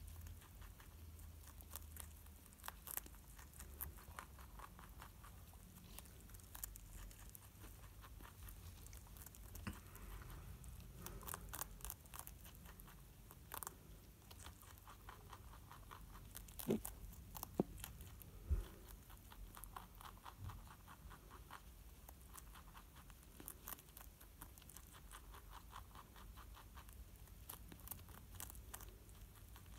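Dutch rabbit chewing broccoli: faint, quick crunching clicks in runs, with a few louder knocks about halfway through.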